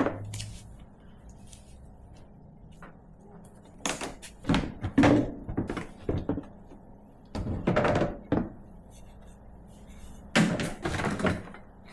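Knocks and rattles of plastic air-intake parts (intake hose, airbox, air filter element) being worked loose and lifted off the engine. They come in three bursts, about 4, 8 and 10.5 seconds in.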